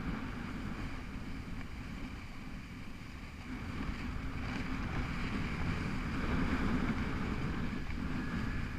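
Wind buffeting the camera microphone over the hiss of a snowboard sliding on packed, groomed snow, growing louder about halfway through as the board picks up speed.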